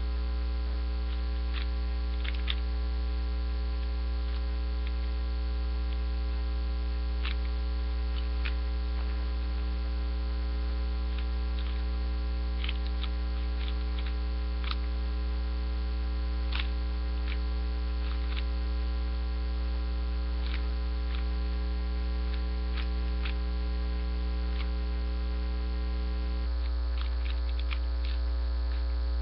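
Steady electrical mains hum with many overtones, the loudest sound, with faint irregular clicks of a 3x3 Rubik's Cube being turned scattered through it.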